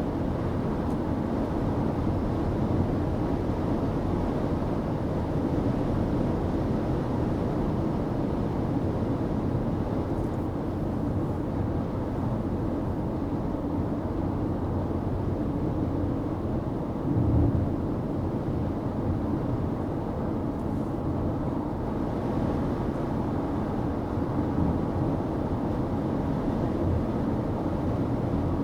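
Steady road and tyre rumble of a car driving on the highway, heard from a dashcam inside the vehicle, with one brief low thump a little past halfway.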